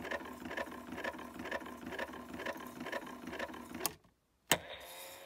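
Valiant 4-transistor reel-to-reel tape recorder rewinding: its small motor and reels whir with a rhythmic pulse about twice a second, which ends in a click as the knob is turned to stop about four seconds in. A sharp click and a faint steady hum follow half a second later.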